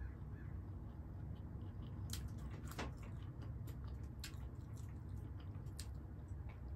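Close-miked eating sounds: chewing with the mouth closed and fingers mixing food on a plate, heard as scattered soft wet clicks over a steady low hum.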